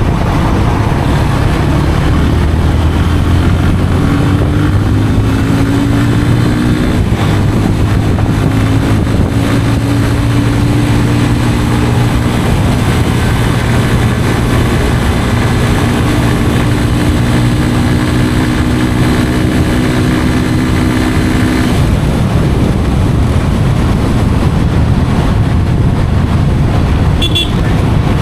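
Yamaha FZ 25's 249cc single-cylinder engine running through its stock exhaust while riding. The engine note climbs a little about five seconds in and holds steady through the middle. For the last several seconds it gives way to an even rushing noise.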